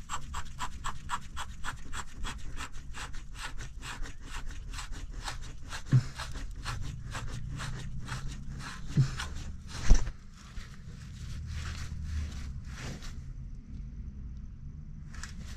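Ratchet wrench clicking in an even run, about five clicks a second, as a nut is run down on the transmission shift linkage, stopping about ten seconds in. Three separate knocks come in the middle, the loudest just before the clicking stops.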